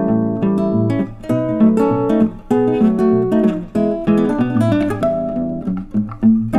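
Background music played on acoustic guitar, with notes plucked and strummed in a steady pattern.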